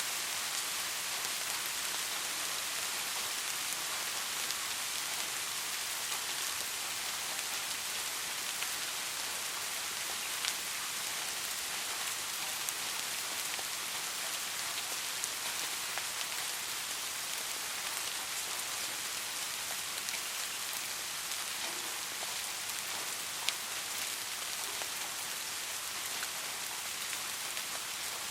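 Soft, steady rain falling, an even hiss with scattered individual drops ticking.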